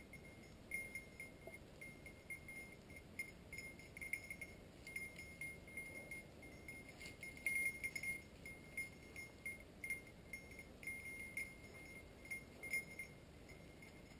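A bell on a hunting dog's collar jingling in quick, irregular strikes as the dog moves through the brush. The jingling dies away near the end.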